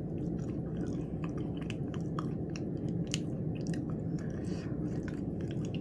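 A person chewing food close to the microphone: wet mouth smacks and small crunches, with many short sharp clicks throughout.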